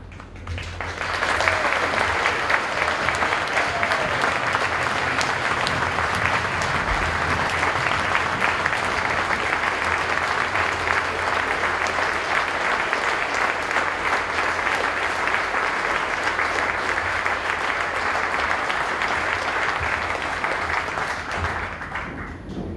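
A large audience clapping steadily, swelling in about a second in and dying away near the end.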